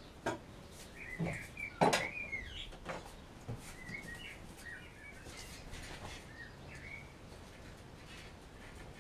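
Small birds chirping in a series of short, quick calls, with a few sharp knocks among them, the loudest about two seconds in.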